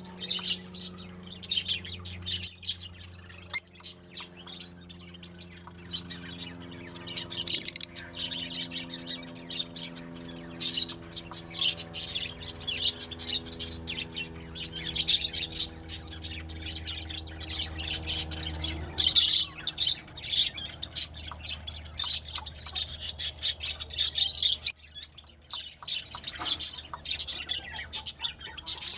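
Rosy-faced lovebirds chirping and squawking in rapid, high-pitched bursts that overlap, almost without pause. Under them runs a steady low hum that cuts out near the end.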